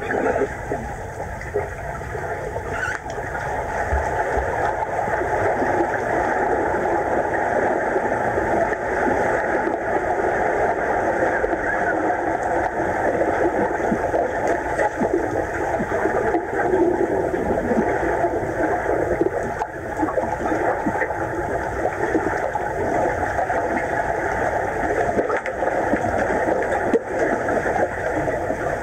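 Muffled underwater pool sound heard from a submerged camera: a steady rushing and bubbling wash with splashes from swimmers moving through the water.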